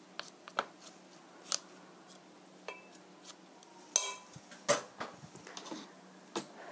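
Metal spoon clinking and scraping against a stainless steel mixing bowl while stirring a thick mixture of ground meat, onion and flour. The clinks come irregularly; the sharpest, about four seconds in, rings briefly.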